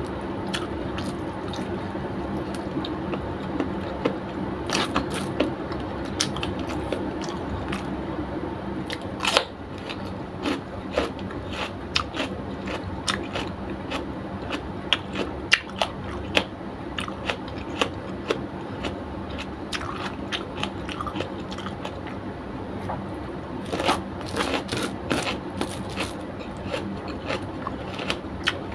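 Close-miked mukbang eating: a person biting and chewing crunchy food, including raw red bell pepper, with many short sharp crunches and wet chewing clicks over a steady low hum.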